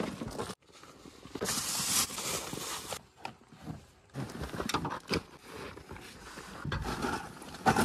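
Rustling and bumping of backpacks and camping gear being pulled out of a vehicle's boot, with scattered clicks and knocks.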